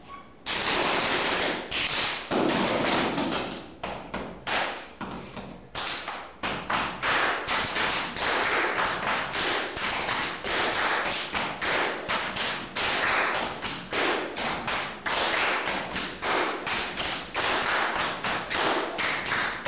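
Body percussion by a group: a fast, continuous run of slaps, taps and claps on the body, starting about half a second in.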